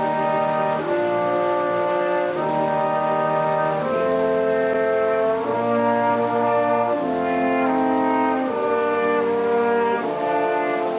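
Brass quintet of two trumpets, French horn, trombone and tuba playing slow, sustained chords that change about every second and a half, with the trombone joining partway through.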